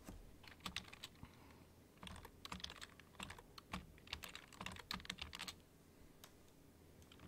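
Faint typing on a computer keyboard: a few keystrokes near the start, then a quick run of them from about two seconds in until about five and a half seconds in, when it stops.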